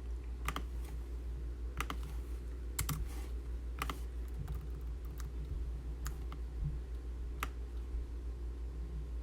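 Scattered single clicks on a computer keyboard, about one a second, over a steady low hum.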